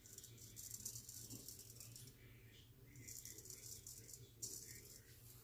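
Gold Monkey 777 straight razor scraping through three or four days' stubble: a faint, crackly high-pitched scratch in three runs of strokes, the first about two seconds long and the last brief.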